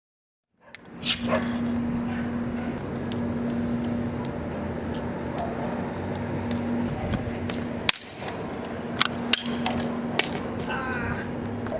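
Juggled machetes clanging: three sharp metallic clangs that ring on briefly, about a second in, near eight seconds and at nine and a half seconds, with lighter clicks between them over a low steady hum.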